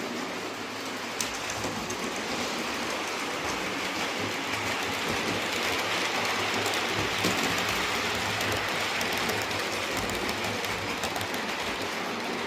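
Model train running on the layout's track, a steady rush with light scattered clicks from the wheels. It grows louder toward the middle and then eases off.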